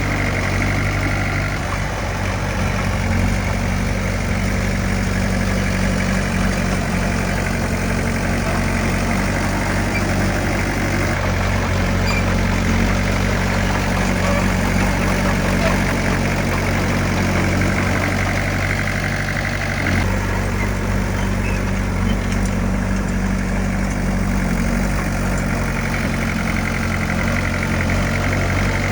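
Heavy diesel engine of earthmoving equipment running steadily, with a slight shift in its note about two-thirds of the way through.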